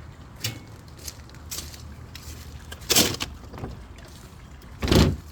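A few short, dull knocks and rustles over a faint steady background, the loudest about three and five seconds in.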